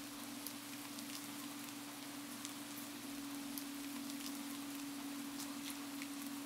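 Steady rain with scattered drops tapping, over a steady low hum that grows slightly louder about three seconds in.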